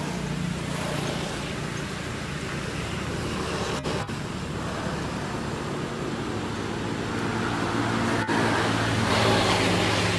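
Road traffic: a motor engine runs steadily with a low hum, and vehicle noise swells near the end. Two brief clicks come partway through.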